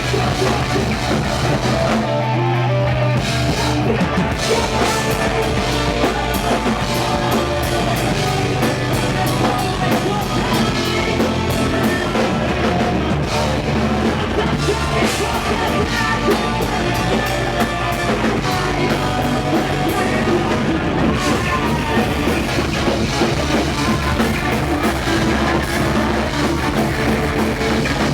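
Rock band playing live at full volume, with drum kit and other instruments. About two seconds in, the cymbals and high end briefly drop away over a held low note, then the full band comes back in.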